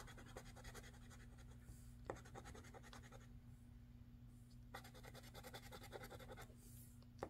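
Faint, rapid scraping as the latex coating is rubbed off a Monopoly Secret Vault scratch-off lottery ticket. It comes in two runs, with a pause of more than a second in the middle, and a single sharper click about two seconds in.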